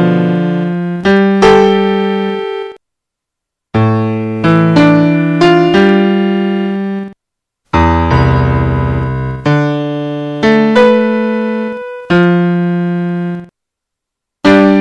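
Slow piano music: gentle phrases of notes and chords that each ring and die away, broken three times by about a second of silence.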